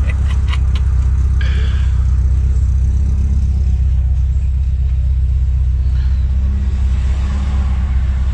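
Steady low rumble of a van driving on the road, with a few light clicks in the first second.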